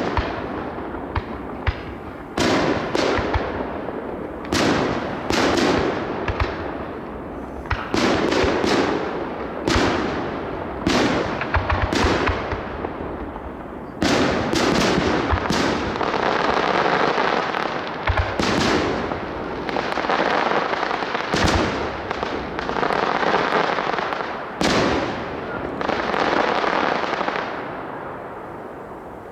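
Aerial fireworks display: shell bursts bang one after another, about one every second or two. In the second half a continuous crackling hiss fills the gaps between the bangs.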